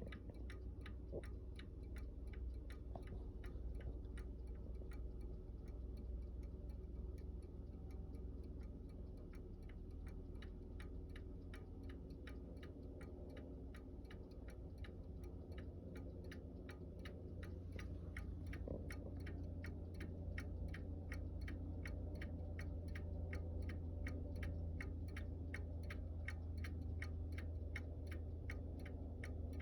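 Antique Seth Thomas chime clock's movement ticking steadily with an even beat, over a low steady hum.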